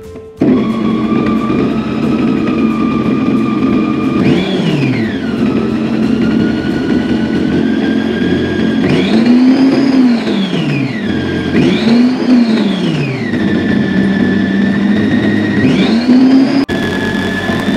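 Electric food processor motor switching on abruptly and running as it blends chocolate cake batter; its whine sinks and climbs back several times, with a momentary break near the end.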